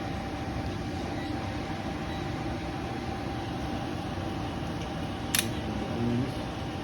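Older Carrier 80% gas furnace running steadily, a continuous rumble with a faint hum. There is a sharp click about five seconds in.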